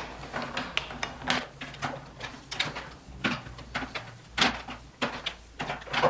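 Power cord of a Kirby Avalir 2 upright vacuum being wrapped onto the cord hooks of its plastic handle: irregular swishes and light taps as the cord slides and knocks against the handle.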